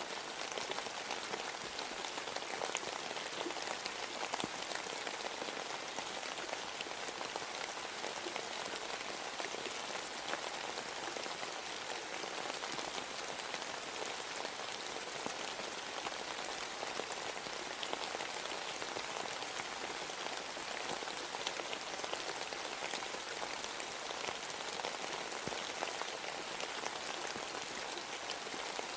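Steady rain: an even hiss of many small drops, unchanging throughout.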